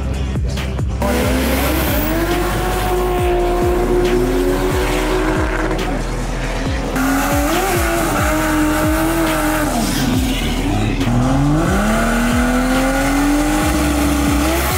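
Drag car's Toyota JZ straight-six engine revving hard with tyre squeal, its pitch wavering, dipping and climbing again. Background music with a steady beat plays underneath.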